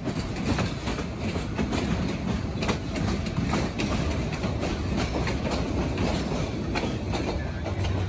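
Passenger train running along the track: a steady rumble with many sharp clicks and clacks of the wheels over the rails.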